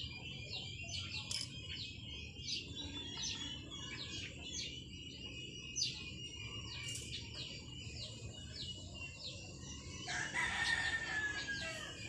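Small birds chirping steadily, and about ten seconds in a rooster crows once, its call ending in a drawn-out falling note.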